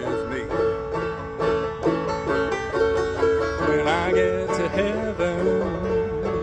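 Open-back five-string banjo played clawhammer (frailing) style, a steady rhythmic downstroke strum with a ringing drone string. A man's voice joins briefly about four seconds in.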